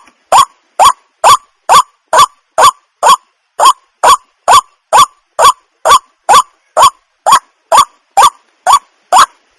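Water hen calling over and over, a short rising note repeated about twice a second at an even pace.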